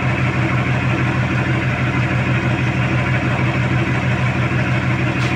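Toyota HiAce GL Grandia van's straight-pipe exhaust idling steadily at the tailpipe.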